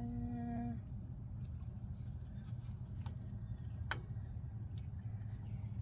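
Faint scattered clicks of small parts being handled over a steady low hum, with one sharper click about four seconds in.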